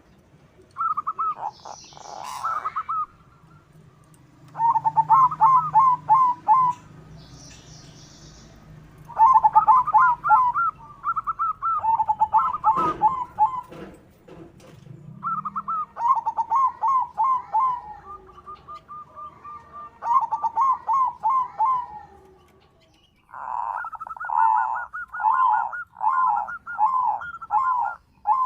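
Zebra dove (perkutut) cooing: about seven bouts of rapid, rolling coo notes, the last one the longest. Faint high chirps from other birds sound behind it.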